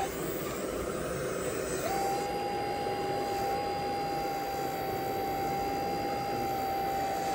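Electric-driven hydraulic pump of a 1/16 Double E Volvo EC160E RC excavator converted to hydraulics, whining. The whine drops away at the start, then spins back up about two seconds in and holds steady while the excavator slews round.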